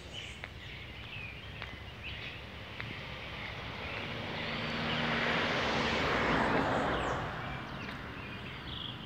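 A car passing on the road: its engine and tyre noise swells over a few seconds, peaks, and fades away.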